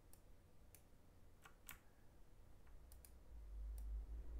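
Computer mouse clicking, about eight short, sharp clicks at irregular intervals. A faint low rumble comes in about three seconds in.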